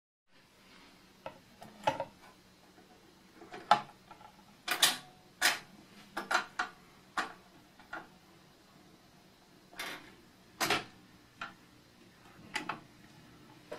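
About fifteen short, light clicks and clinks at irregular intervals, some with a brief metallic ring, over near silence.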